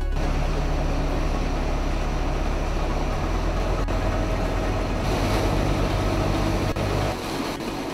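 Heavy industrial machinery running steadily: a loud, even rush of noise over a low hum, with a few faint clicks. The low hum drops away about seven seconds in.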